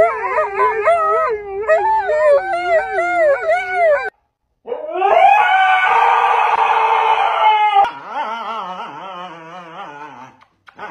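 Dogs howling in long, wavering, up-and-down calls. For about the first four seconds two Alaskan Malamutes trade howls, then after a short break a husky gives a louder, held howl for about three seconds, followed by quieter wavering husky howls that fade out.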